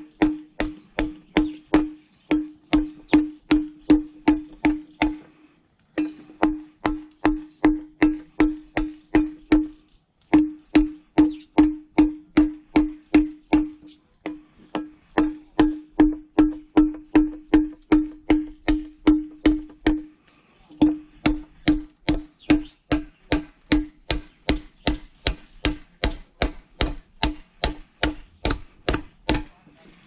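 Machete blade chopping at a section of bamboo, about three blows a second, each blow a sharp knock with a short pitched ring. The blows come in runs of several seconds with brief pauses between them, and stop just before the end.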